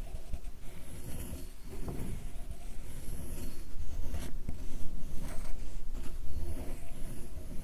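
Sumi ink stick being ground on a stone inkstone: close, continuous rubbing and scraping of the stick against the wet stone.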